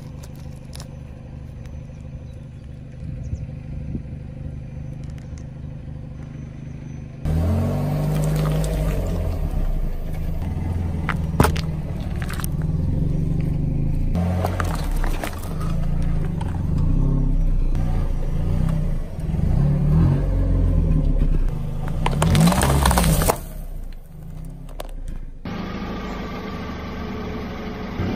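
A car engine running at low speed while a tyre rolls over and crushes objects, with a few sharp cracks and one loud burst late on. The first several seconds are quieter, with the light crackle of crushed candy-coated chocolate shells being handled.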